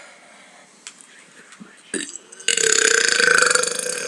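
A long, loud burp that starts suddenly a little past halfway and holds a steady low pitch; the first half is quiet.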